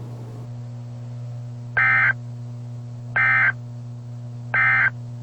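Emergency Alert System end-of-message data tones: three short identical bursts of digital warbling, each about a third of a second long and about 1.4 s apart, over a steady low hum. The three bursts signal the end of the alert.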